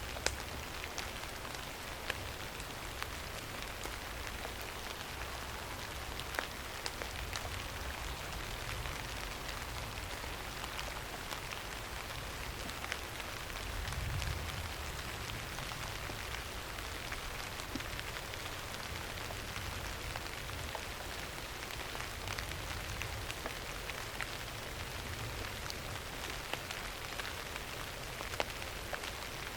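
Steady rain falling, a continuous hiss with many individual drops ticking on a surface. A low rumble swells briefly about halfway through.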